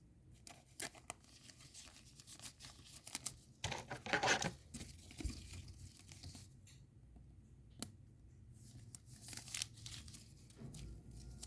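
Trading cards and their pack wrapper being handled: scattered clicks and scrapes as cards are slid and flipped, with a louder crinkling, tearing rustle about four seconds in.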